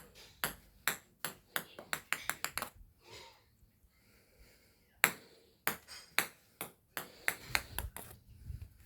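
A quick run of sharp clinks and taps from small hard objects knocking together, each ringing briefly. They come in two clusters with a short lull between.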